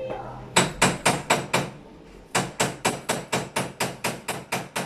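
Kitchen knife chopping fresh ginger on a cutting board: a quick run of about six cuts, a short pause, then steady chopping at about four to five cuts a second.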